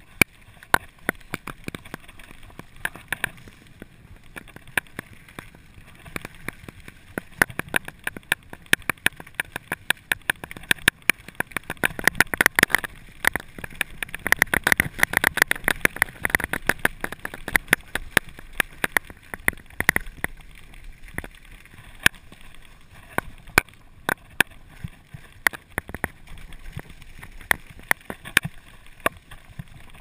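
Mountain bike rattling over a gravel forest trail: a constant clatter of sharp clicks and knocks from the chain and frame over the hiss of tyres on loose gravel, busiest around the middle.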